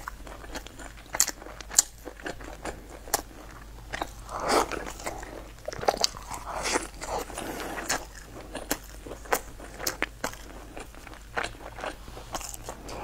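Close-miked eating of crusty baked pastry: sharp crisp crunches of biting and chewing throughout, thickening into a denser run of chewing about four and about six seconds in.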